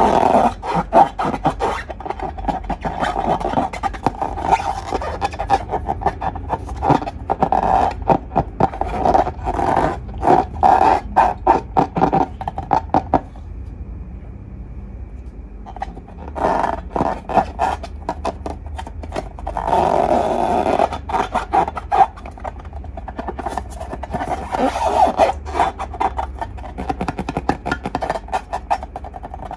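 Slime being squeezed and worked with rubber balloons: a dense run of sticky crackles, pops and rubbery squeaks, with a short pause about halfway.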